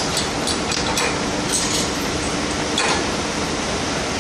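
Heavy lifting machinery running steadily, with a few light metal clinks about one second, a second and a half, and three seconds in.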